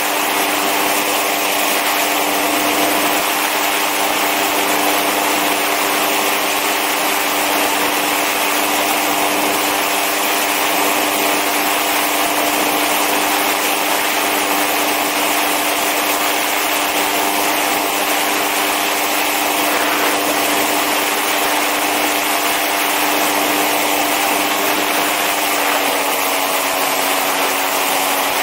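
Powered parachute's engine running steadily at one pitch in flight, with a broad hiss of rushing air over it.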